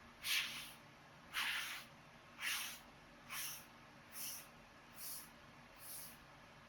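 A scouring pad scrubbing a wooden cutting board in seven rhythmic swishes, about one a second, each fainter than the last.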